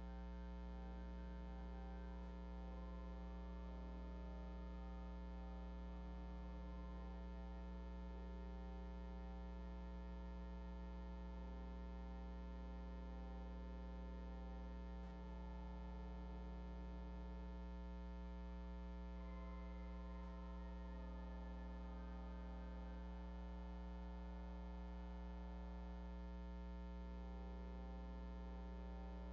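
A steady electrical mains hum, with faint slow offertory music of held notes that change every few seconds beneath it.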